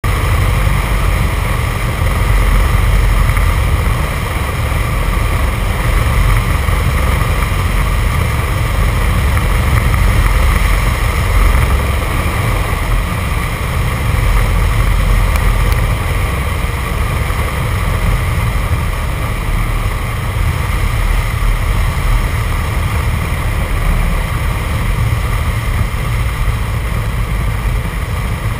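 Light aircraft's piston engine and propeller heard from inside the Jodel 120A's cockpit, a steady loud drone mixed with airflow noise, on final approach to a grass strip through to the landing roll.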